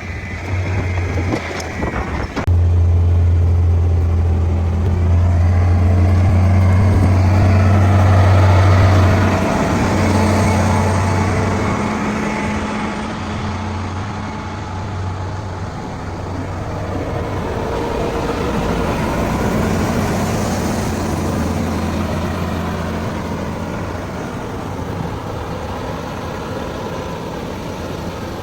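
Heavy engine of road construction machinery running with a deep, steady hum. It comes in sharply about two and a half seconds in, is loudest for the next several seconds, then eases off and keeps running.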